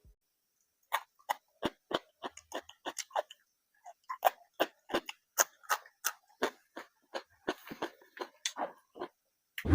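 Close-miked eating sounds: a run of short, sharp wet clicks and smacks, irregular at about three a second.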